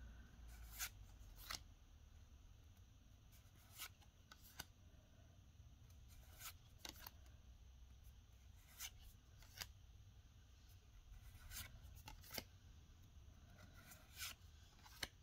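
Faint, sharp clicks and brushes of Pokémon trading cards being slid one at a time from the front to the back of a handheld stack, about one every second or so, often in pairs.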